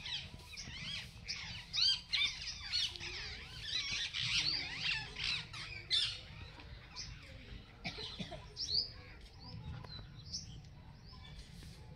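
Many small birds chirping and calling at once, a dense chorus of quick rising and falling notes that thins out over the second half, with a few louder calls standing out.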